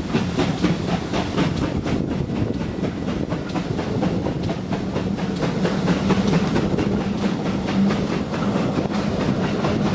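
Train hauled by the GWR 28xx class 2-8-0 steam locomotive 3802 pulling away, heard from one of its carriages: a quick, even rhythm of beats, about four or five a second, over the steady running rumble of the coaches on the rails.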